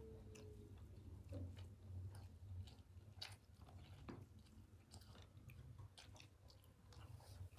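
Faint eating sounds: people chewing and picking food by hand off a paper wrapper, heard as scattered small clicks and crunches over a low steady hum.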